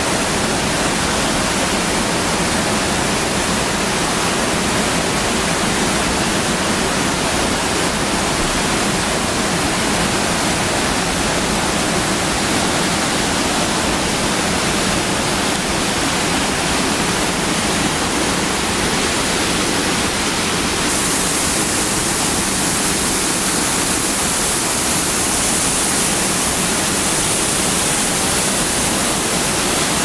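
Waterfall rushing over rocks into a pool: a loud, steady roar of falling water. About two-thirds of the way through the rush turns hissier.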